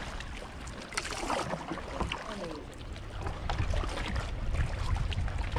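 Kayak paddling on calm river water: paddle blades splashing and dripping, with water lapping against the hull and a low steady rumble.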